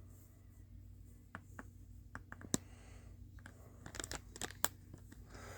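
Paper crinkling with scattered sharp clicks as a model kit's instruction sheet is handled, the loudest click about halfway through and a quick cluster of them near the end, over a low steady hum.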